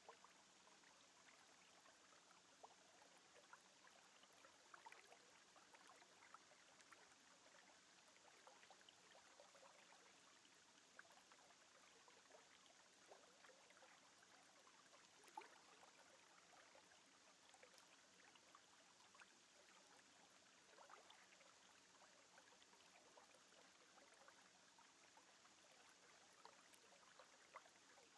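Near silence: a faint steady hiss with scattered tiny clicks.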